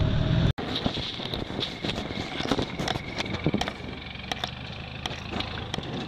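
A loud off-road vehicle engine cuts off abruptly about half a second in; then a vehicle engine runs more quietly, with a faint high whine that rises slowly and scattered sharp clicks and snaps.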